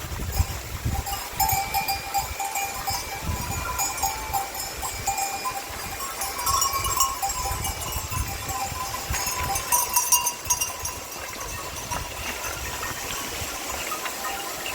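Livestock bells clinking and ringing irregularly, several bells at different pitches sounding on and off together.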